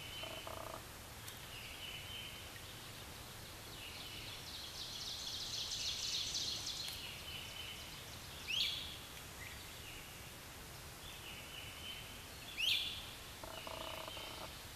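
Birds and frogs calling. A short high note repeats every second or two, a buzzy high trill runs from about four to seven seconds in, and two loud slurred calls come about eight and thirteen seconds in. A low, pulsing croak starts near the end.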